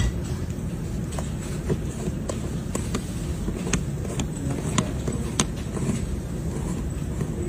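Steady low rumble with a dozen or so short, sharp clicks and taps scattered over it, the sharpest a little under four seconds in and twice around five seconds in.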